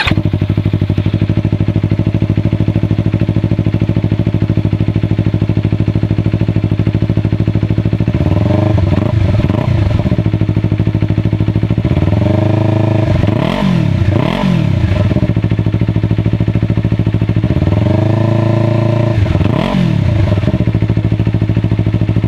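Yamaha R3's 321 cc parallel-twin engine idling steadily through a freshly fitted Akrapovič slip-on exhaust, then blipped in quick revs several times from about eight seconds in, each one rising and falling back to idle. It is a stationary sound check of the aftermarket slip-on, with a little added tone, grunt and pop over stock.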